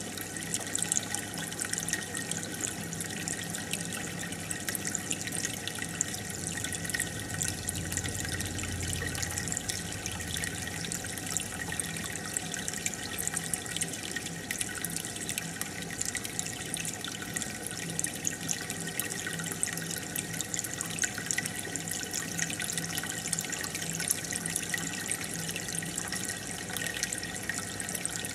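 Aquarium water bubbling and trickling steadily, with many small drips and splashes, over a faint low hum.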